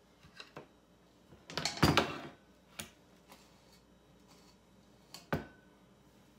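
Metal utensil knocking and scraping against a stainless steel mixing bowl as cookie dough is scooped out onto a metal baking sheet, in scattered clicks and knocks. The loudest clatter comes about two seconds in, and another knock near the end leaves a short ring.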